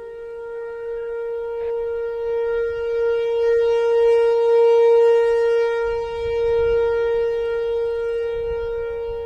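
Outdoor tornado warning siren sounding a steady wail at one pitch, rich in overtones, growing louder to a peak about halfway through and then fading somewhat. Near the end a second, slightly higher siren tone slides up alongside it, over a low rumble.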